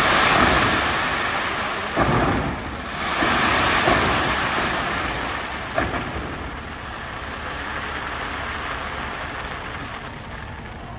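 Fireworks going off: a dense crackling hiss with a few sharp bangs about two seconds apart, tapering off over the last few seconds.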